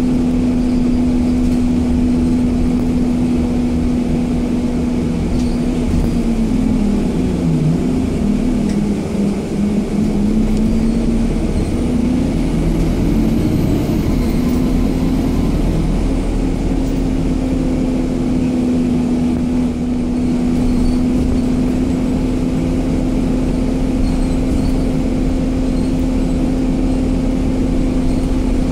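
Inside an Alexander Dennis Enviro 200 MMC single-deck bus on the move: its engine and drivetrain give a steady drone. The drone's pitch dips and climbs back about a third of the way in as the bus changes speed, then holds steady.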